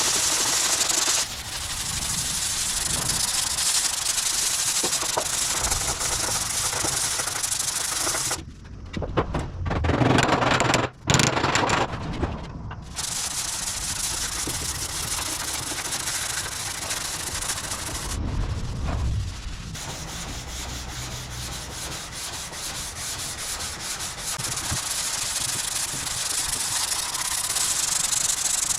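Sandpaper on a sanding block rubbing over a car bonnet's steel panel, blocking down guide coat to bring out the dents, heard as a steady scratchy hiss. Near the middle it gives way for a few seconds to a louder, lower sound.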